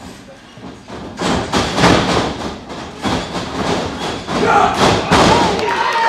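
Wrestlers' bodies and strikes hitting in the ring, a run of sharp thuds about three a second, with voices from the crowd coming in near the end.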